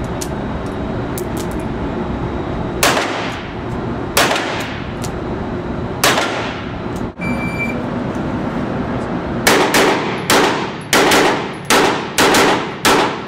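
Pistol shots on an indoor firing range, each ringing off the walls: three spaced shots about a second and a half apart, then after a short break a quicker string of about nine shots, over a steady background hiss.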